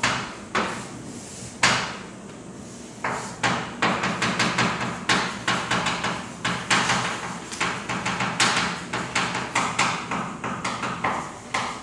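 Writing and drawing on a board: a run of sharp taps and short strokes, a few at first, then several a second from about three seconds in.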